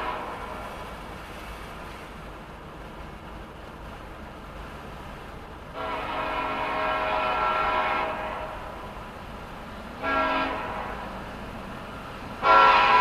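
Norfolk Southern freight locomotive's air horn sounding the grade-crossing signal. A blast fades at the start, a long blast comes about six seconds in, a short one at about ten seconds, and a loud long blast begins near the end. A low train rumble runs between the blasts.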